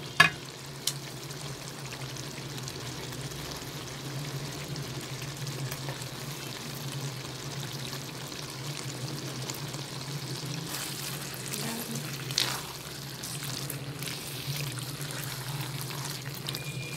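Potato and aubergine curry sizzling steadily in a nonstick wok over a low hum, with a few sharp clicks at the start and a brief scrape of the silicone spatula later on.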